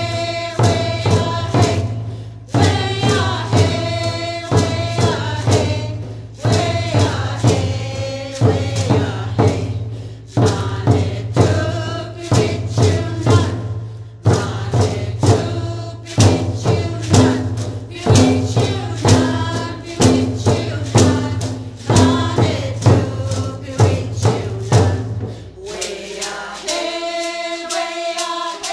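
Powwow drum group singing a chant over a steady drum beat. Near the end this gives way to a held chord of music.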